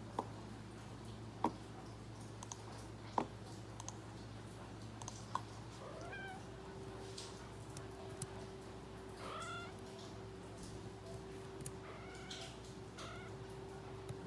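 A calico cat gives several short meows in the second half. A few sharp clicks come in the first few seconds.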